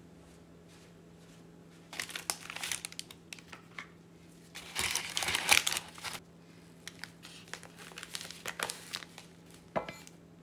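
Paper cornmeal bag crinkling and rustling as it is handled and opened, loudest about halfway through, then lighter rustles and a few clicks as the cornmeal is scooped with a plastic measuring cup.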